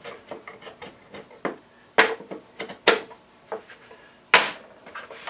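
Wooden boards and the green vise pieces being handled, set down and slid on a wooden dog-hole worktop. It is a run of light wooden knocks and clacks with some rubbing, the sharpest knocks about two, three and four and a half seconds in.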